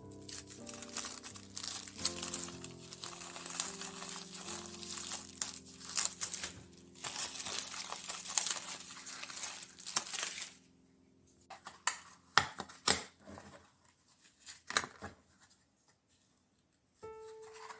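Crinkly material being handled and crumpled, over soft background music. The crinkling stops about ten seconds in, leaving a few scattered clicks and taps.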